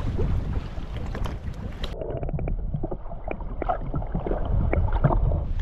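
Wind on the microphone and sea water sloshing over a low rumble; about two seconds in the sound turns muffled and dull, underwater, with a low rumble and scattered clicks.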